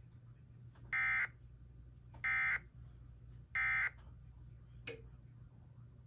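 Emergency Alert System End-of-Message signal from a TFT EAS encoder/decoder: three short bursts of shrill digital data tones, evenly spaced about a second and a half apart, marking the end of the alert message. A single click follows about five seconds in.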